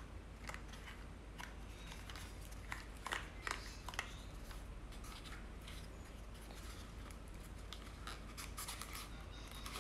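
Small black cardboard box being handled and opened by hand: faint scrapes, rubs and light taps of cardboard on cardboard, several in the first few seconds and another cluster near the end.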